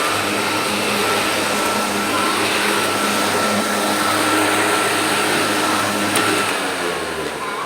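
Sun Joe electric hover lawnmower running: a steady whir of its electric motor and spinning blade with a thin high whine, dying away near the end.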